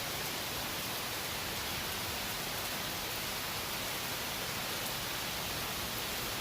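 Steady, even hiss with nothing else standing out: constant background noise.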